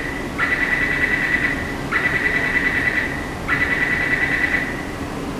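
Metro door-closing warning tone: a warbling electronic beep repeated in long pulses, about one every second and a half, four in all. It signals that the train doors are about to close before departure.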